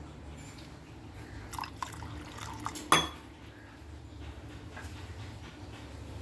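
Kitchen vessels and water being handled: a few light knocks, then a sharp ringing clink about three seconds in, over a low steady hum.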